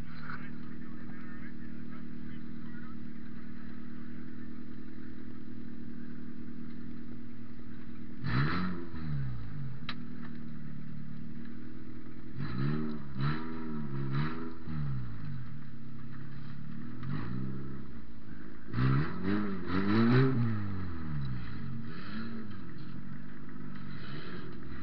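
Toyota Matrix demolition derby car's engine idling, heard from inside the stripped cabin, with a short rev about eight seconds in, a run of quick throttle blips from about twelve to fifteen seconds, and another cluster of revs around twenty seconds.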